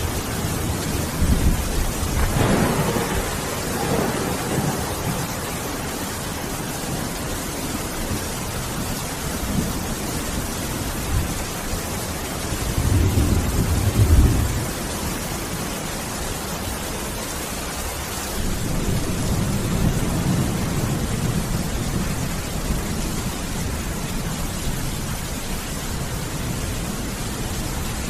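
Thunderstorm: steady heavy rain with several low rolls of thunder. One comes a couple of seconds in, a stronger one peaks about halfway, and a longer rumble follows a few seconds later.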